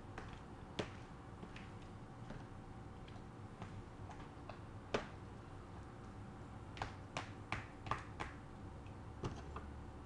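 Metal spoon stirring creamy fruit salad in a plastic bowl, clicking against the bowl in scattered taps, with a quick run of several taps in the latter half, over a faint steady hum.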